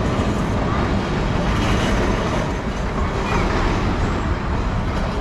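Steady low rumble of vehicle noise on a city street.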